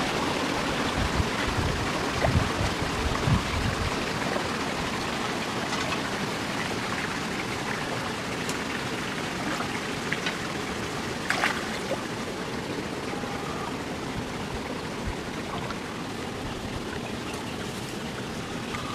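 Shallow stream water running and splashing around a man wading through it, with low sloshing in the first few seconds. A few brief clicks and knocks stand out later.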